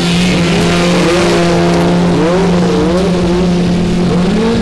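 Several racing lawn tractor engines running hard together: one steady drone, with other engine notes rising and falling as the tractors speed up and slow around the track.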